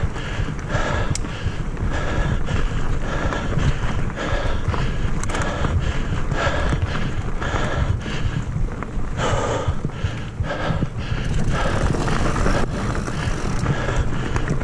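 Mountain bike rolling fast over a dirt trail, heard from a camera mounted on the bike or rider: wind buffets the microphone with a steady rumble over tyre and frame rattle, and a short noise repeats about every half second.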